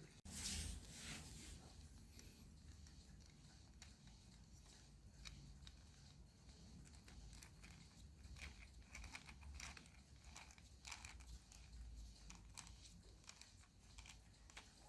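Faint handling noise of a small plastic rubber band powered car: a short rustle near the start, then scattered light clicks and taps.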